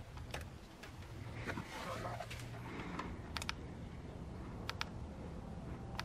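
Plastic buttons on a Topdon ArtiBattery 101 handheld battery tester clicking as menu choices are pressed. Each press is a quick double click, coming about every second and a quarter in the second half. Before that there are soft rustles and clicks as the tester's clamps are fitted to the battery.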